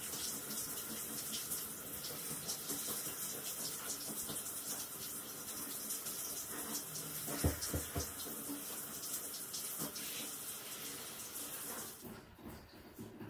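Handheld shower spray running onto a wet Shetland sheepdog's long double coat during a rinse, a steady hiss that cuts off about twelve seconds in. A couple of low thumps come about halfway through.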